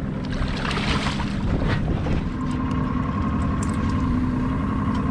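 Boat motor running steadily, its note changing about two seconds in, with a brief rush of wind or water noise near the start.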